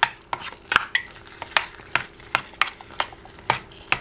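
Metal spoon stirring thick mashed squash in a small Melissa & Doug stainless steel saucepan. It makes a quick, uneven run of clinks and scrapes against the pan, about three or four a second.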